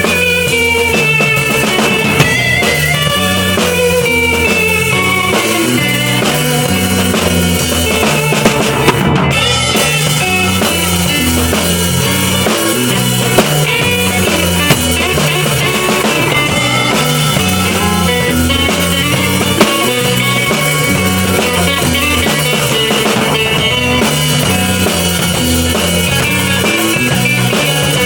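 Loop-session jam: a drum kit played over layered guitar loops, with a low line that repeats over and over.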